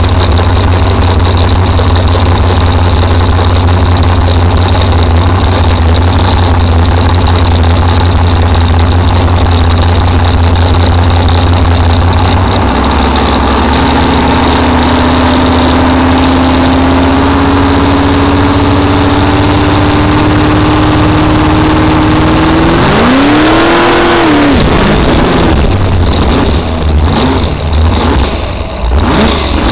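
Supercharged Ford engine of a blown flat-bottom boat running hard at speed, with heavy wind and water noise; a whine climbs slowly in pitch over the second half as the boat pulls faster. About 23 seconds in the engine note flares up and drops away as the throttle comes off, and it then runs low and uneven as the boat slows.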